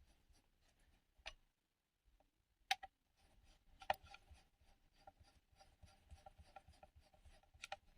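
Faint plastic clicks and rubbing from handling a small digital multimeter as its battery cover is fitted back on, a few sharper snaps among many small ticks.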